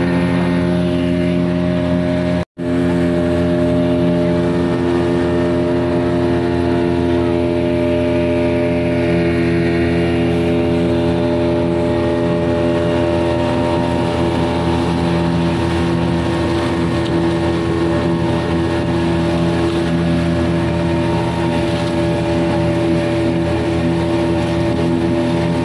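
Motorboat engine running at a steady speed while under way, with water rushing along the hull. The sound cuts out for a moment about two and a half seconds in.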